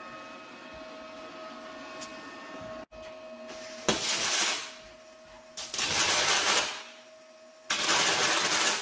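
Arc welding in three short bursts of about a second each, each a loud even hiss, as a frame is tack-welded onto the boat.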